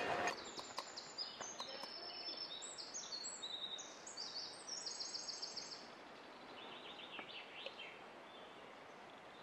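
Songbirds singing: fast runs of short, high repeated notes for the first several seconds, then a fainter, lower trill, over a quiet outdoor background.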